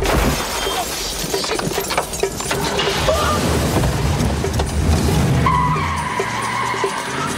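Film soundtrack of a car scene: a car and tyres skidding in a dense jumble of noise. A wavering tone comes in about two-thirds of the way through.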